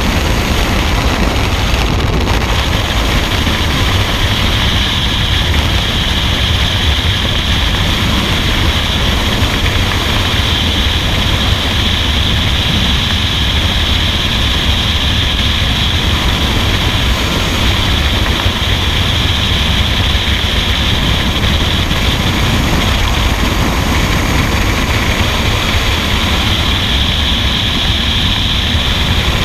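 Loud, steady rushing wind of skydiving freefall buffeting a helmet-mounted camera's microphone, with no let-up.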